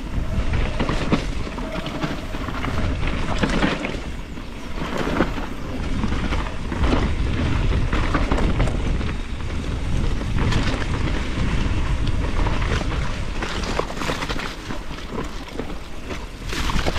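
Mountain bike being ridden down a dirt trail, heard through an action camera's microphone: steady wind rumble with tyre noise and frequent knocks and rattles from the bike over the ground.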